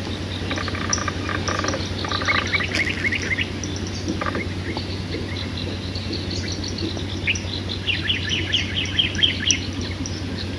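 Bird chirping in two quick runs of short high notes, the first about two seconds in and the second near the end, over a steady low hum.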